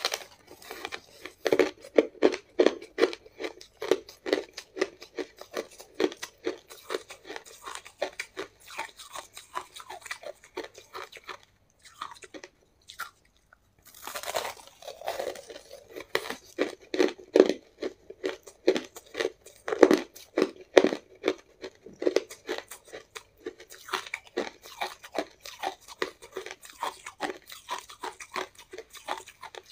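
Shaved ice being bitten and chewed up close: packed, icy crystals crunching in quick rapid crackles. There is a short lull about twelve seconds in, then a loud fresh bite and more crunching.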